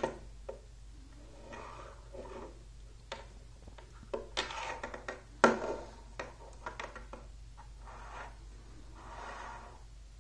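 Magnetic rods and steel balls clicking together and rubbing as a small magnetic dome is handled and adjusted, with one sharp click about halfway through and a few short scraping rubs between the clicks.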